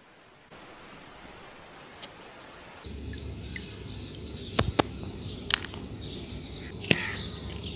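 Faint hiss, then from about three seconds in, a steady outdoor background noise with a few sharp clicks from plastic toy animal figures being handled in a plastic basket.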